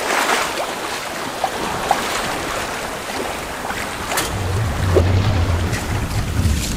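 Sea water washing and splashing around a sailboat, with wind buffeting the microphone from about four seconds in.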